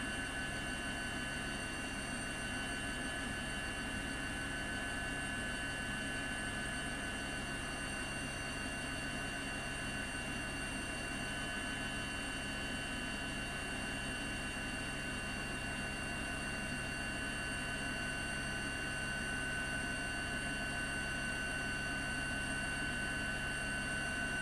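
Steady helicopter engine and rotor noise: a high turbine whine with several steady tones over a constant rushing hum, unchanging throughout.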